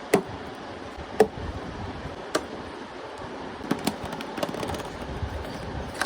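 Scattered sharp clicks and taps, about half a dozen over a few seconds, from handling a phone's cardboard box and its packaging.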